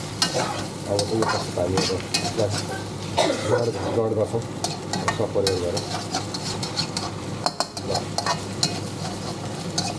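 Food sizzling in a hot pan as it is stir-fried, with a utensil scraping and clicking against the pan at irregular moments.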